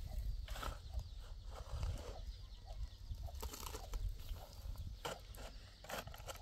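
A long-handled hoe striking and scraping stony ground as it digs, with a few sharp, irregularly spaced hits over a low rumble of wind on the microphone.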